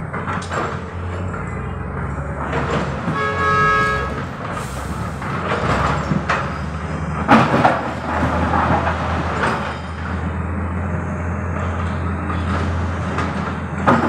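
Diesel engines of a hydraulic excavator and dump trucks running steadily, with rocks crashing and clattering into a dump truck's bed as the excavator empties its bucket, loudest about seven seconds in. A short horn-like toot sounds about three and a half seconds in.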